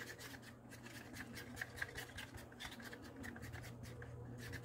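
A wooden craft stick stirring thick acrylic pouring paint in a cup, scraping and clicking against the cup in quick, irregular strokes, over a faint steady low hum.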